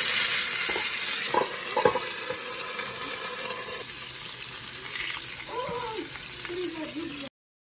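Brined venison sizzling loudly as it is seared in a hot cast-iron skillet, with a couple of soft knocks about a second and a half in as pieces go into the pan. The sizzle eases a little, then cuts off suddenly near the end.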